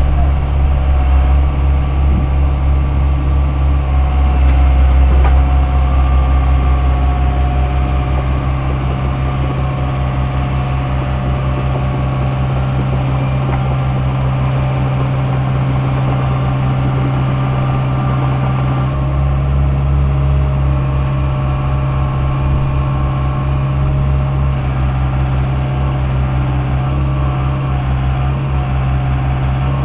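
Diesel engine of a Daewoo 75V mini excavator running steadily as it digs, a low, even drone whose note shifts slightly higher about two-thirds of the way through.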